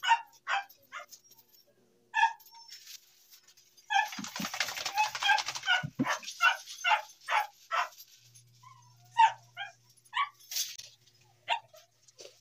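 A wet dog yipping and whimpering in a run of short, high calls, with a burst of spraying water about four seconds in as it shakes itself.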